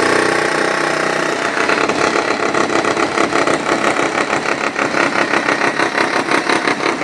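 Engine-driven concrete-cutting saw running. A steady drone gives way, about a second and a half in, to an even pulsing of about five beats a second.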